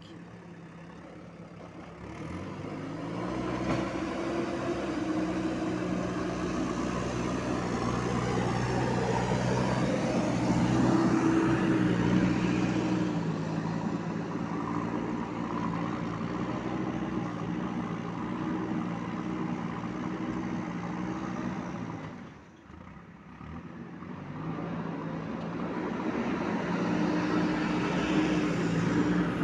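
JCB 3DX backhoe loader's diesel engine revving up under load about two seconds in and running hard, its pitch stepping up and down as the machine works. It drops off briefly around three-quarters of the way through, then revs back up.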